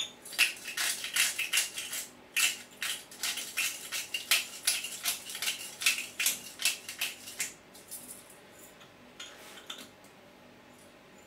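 Hand pepper grinder being twisted to grind pepper: a fast run of crisp, crunchy clicks lasting about seven seconds, then a short second burst near the end.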